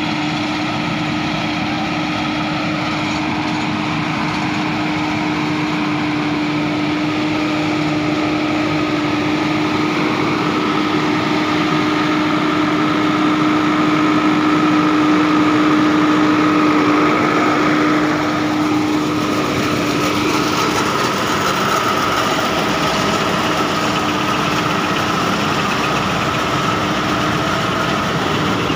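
A Solis 50 tractor's diesel engine running steadily while it drives a tractor-drawn Makreis coffee harvester, with the harvester's machinery adding to the steady mechanical noise. A steady hum sits under it and fades out about two-thirds of the way in; the noise is loudest around the middle, when closest to the tractor's engine.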